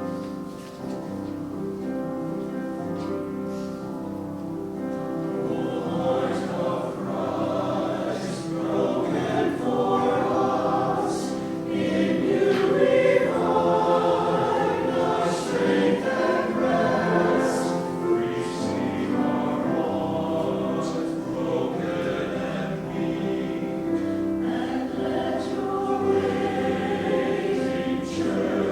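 Choir singing a sacred anthem with instrumental accompaniment. The accompaniment sounds alone at first, and the voices come in about five seconds in and grow fuller.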